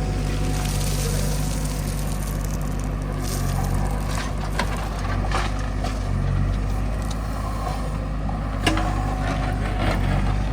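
Heavy machine's diesel engine running steadily, with scattered clanks and knocks over it, one sharper knock near the end.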